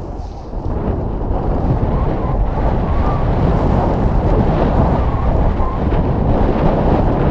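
Wind buffeting the microphone of a camera worn by a skier moving downhill: a steady, loud low rumble that grows louder about half a second in.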